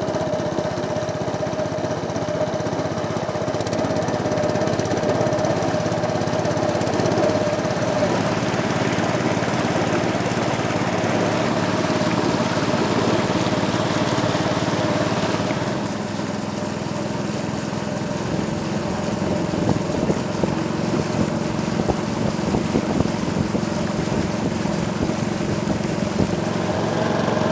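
Small motorboat's engine running steadily as the boat gets under way, with a strong, even drone; it eases off slightly about sixteen seconds in.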